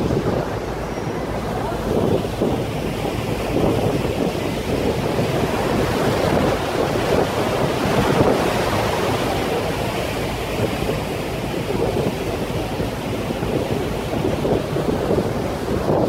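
Wind buffeting the microphone on the open deck of a moving tour boat, over the rush of water along the hull: a steady, rumbling noise.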